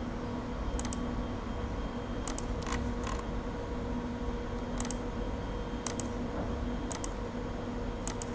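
Computer mouse clicking about eight times at irregular intervals while lines are drawn in modelling software, over a faint steady electrical hum.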